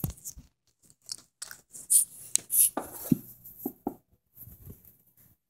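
Handling noise close to the microphone: irregular rustles and sharp clicks, a few louder ones in the middle, then dying away just before the end.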